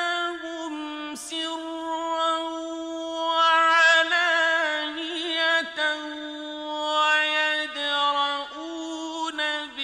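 A single unaccompanied male voice chanting the Quran in the melodic mujawwad style. It holds long notes with wavering ornamental turns and brief breaks, and the pitch steps down a little as the phrases go on.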